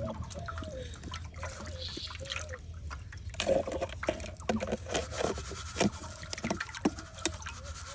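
Water dripping and trickling in irregular small splashes, with scattered clicks.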